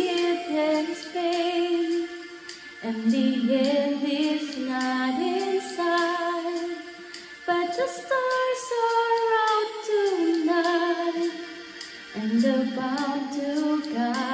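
A woman singing a slow ballad into a handheld karaoke microphone, holding long notes in phrases with short breaths between them.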